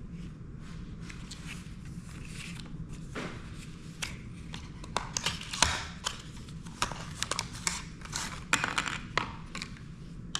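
Packaging and a small accessory being handled: a quiet stretch, then from about three seconds in a run of irregular clicks, taps and short crinkling rustles.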